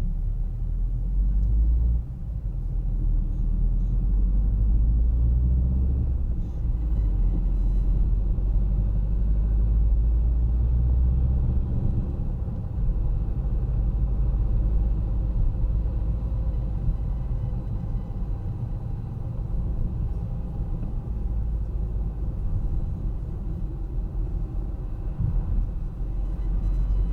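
Car driving on city streets: a steady low engine and road rumble, heavier for the first dozen seconds and a little lighter after.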